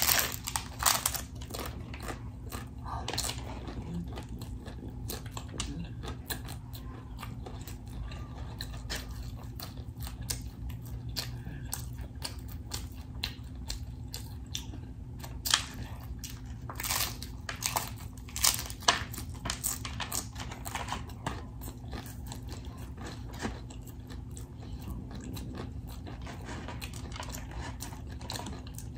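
A stuffed hard-shell taco with ground meat, cheese and lettuce being bitten and chewed, giving a string of sharp crunches of the crisp shell. The crunches come loudest at the first bite and in a cluster about halfway through.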